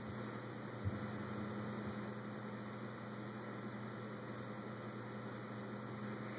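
Steady low electrical hum under a faint hiss, with one faint click just under a second in.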